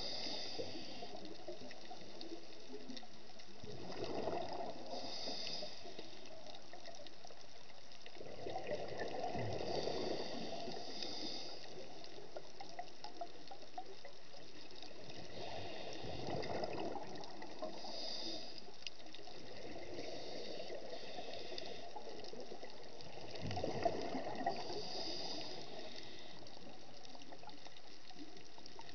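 A scuba diver breathing through a regulator underwater: four bubbling exhalations, each lasting a second or two and coming about every six to seven seconds, over a steady hiss.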